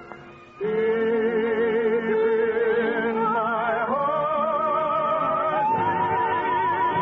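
Orchestral bridge music from an early-1950s radio transcription. After a brief dip about half a second in, long held notes with vibrato step up in pitch a few times.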